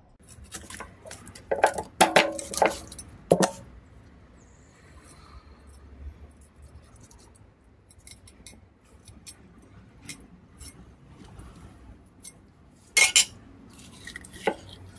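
Kitchen knife scraping and knocking along a whole wolf herring on a wooden chopping board as the fish is cleaned, a quick run of sharp scratchy strokes and clinks at first, then scattered light ticks, then two louder strokes near the end.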